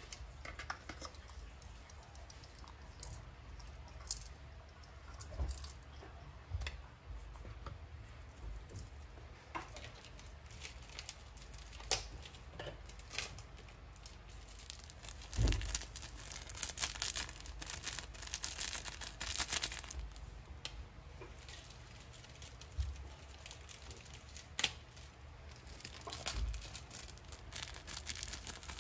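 Coarse salt sprinkled by hand over whole fish in a metal pot: irregular light crackles and ticks of falling grains, with a dull knock about halfway through. Near the end a small plastic seasoning packet crinkles as it is handled.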